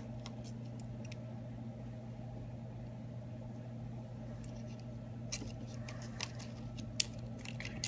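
Scattered light clicks of a small screwdriver and tiny screws being handled on a phone, a few near the start and more in the last few seconds, over a steady low hum.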